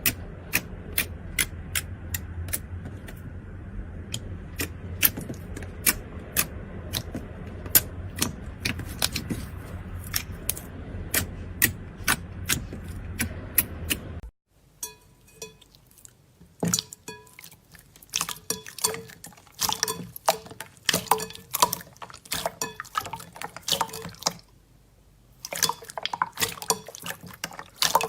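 Slime being squeezed and poked, giving sharp wet clicks and pops at an irregular pace, over a steady low hum. About halfway through it cuts to another slime clip with quieter background and a run of crackly clicks and pops.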